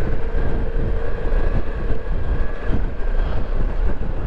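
Ducati Multistrada V4 Rally's V4 engine running steadily as the bike rolls over loose rocky ground, with the rumble and jolts of the tyres and suspension on the stones.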